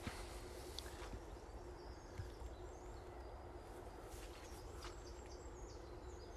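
Faint, distant bird calls, a few short high notes about four seconds in, over a quiet open-air background.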